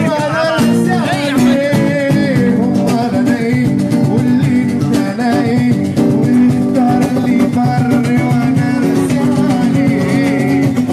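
Live acoustic band music: a flute plays an ornamented melody over steady cajón drumming and string accompaniment.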